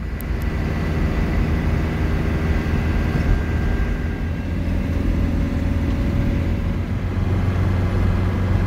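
Camper van engine running steadily with road noise, heard from inside the cab while driving.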